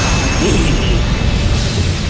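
Loud, rushing magical teleport sound effect from an animated cartoon, with a faint high steady tone in it, building and holding as the characters are transported away.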